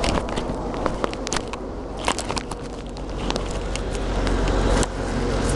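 Airport tram running with a steady low hum and rumble that swells a little after the middle, overlaid by sharp clicks and rubbing from the camera being handled.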